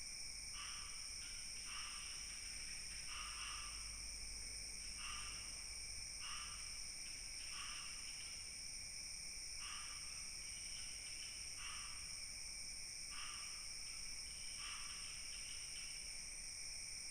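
Night insect chorus: a steady high-pitched trilling, with a short raspy chirp repeating irregularly every one to two seconds.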